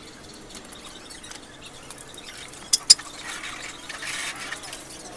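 Hand wiping a motorcycle's bodywork during a wash, with two sharp clicks a little past halfway through and a short, soft rushing noise after them.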